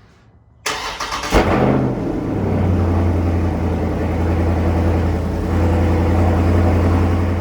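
Cold start of a 2020 Dodge Charger Scat Pack's 392 (6.4-litre) HEMI V8: the starter cranks briefly, the engine catches with a loud rev flare about a second and a half in, then settles into a steady idle.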